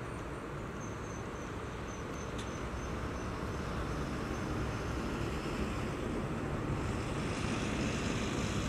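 Highway traffic noise from trucks: a steady, low rumble that grows gradually louder toward the end.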